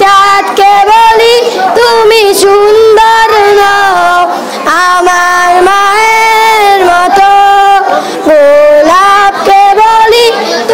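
A boy singing a Bengali ghazal about his mother, solo and unaccompanied, in long held notes with wavering, ornamented turns. His phrases break for short breaths about four and eight seconds in.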